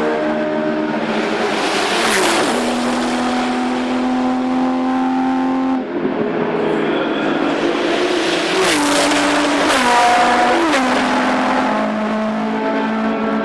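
Racing car engines running hard, their pitch stepping down at several gear changes. The sound changes abruptly about six seconds in.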